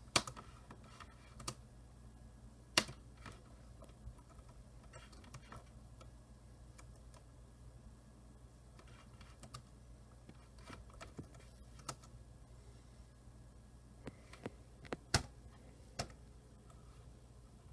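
Scattered single clicks from a computer keyboard and mouse, spread out with pauses between them, over a steady low hum.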